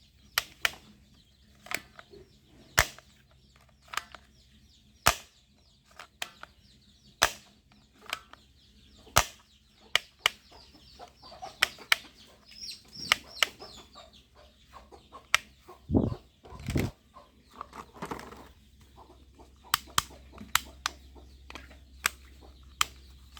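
Toy guns being fired and cocked: a run of sharp clicks and pops at irregular intervals, about one a second, with two duller thumps about two-thirds of the way through.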